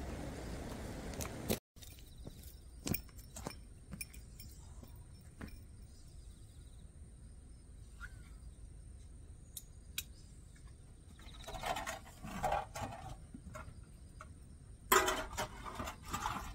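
Items being handled in a car's open boot: scattered clicks and clinks, with two bouts of crinkling, like a plastic bag being rustled, in the second half. The loudest comes near the end.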